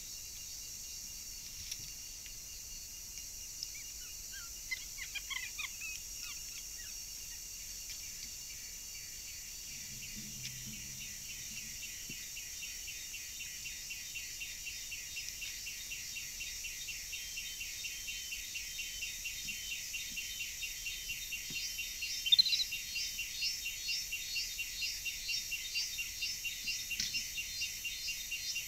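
Forest insect chorus: a high-pitched pulsing drone at about three pulses a second, growing louder through the second half. A few bird chirps come about five seconds in, and one sharp chirp comes a little after twenty seconds.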